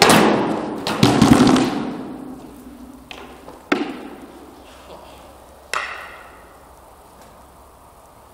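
Wooden practice weapons knocking against round wooden shields in sword-and-shield sparring: two loud blows at the start and about a second in, then a few lighter knocks a second or two apart. Each hit echoes in a large hall.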